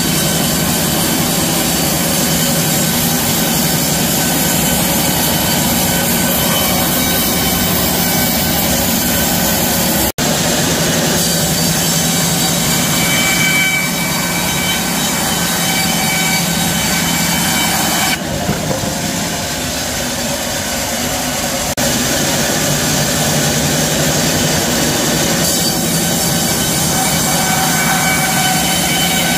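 Horizontal band sawmill running, its blade cutting lengthwise through a red cedar log: a loud, steady machine whine made of many fixed tones. The sound breaks off for an instant about ten seconds in, and the high end drops for a few seconds past the middle.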